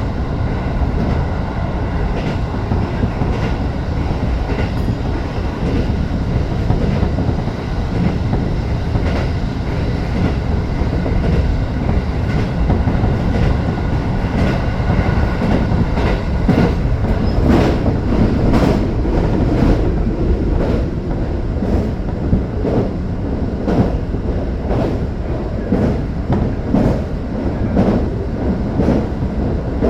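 Tokyo Metro 05 series train running between stations, heard from inside the car: a steady rumble of wheels on rail, with a regular clickety-clack of wheels over rail joints becoming distinct about halfway through.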